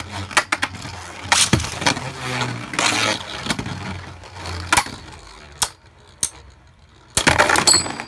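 Two Beyblade spinning tops whirring and clacking against each other and the walls of a plastic stadium, with a quick flurry of loud clacks near the end as one top bursts apart, a burst finish.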